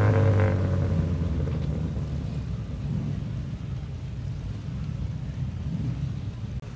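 A car engine's low, steady note fades over the first second or so, leaving a low engine rumble that slowly dies down.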